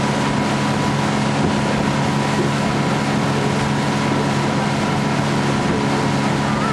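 Outboard motor driving a boat along at a steady speed, its drone holding one pitch throughout, under a constant rush of wind and water.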